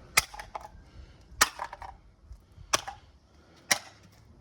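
Hammer blows on a corded electrical device: four sharp strikes about a second apart, some followed by a brief rattle of loose parts.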